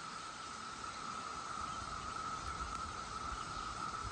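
Chorus of Brood X 17-year periodical cicadas: a steady, unbroken drone held at one pitch.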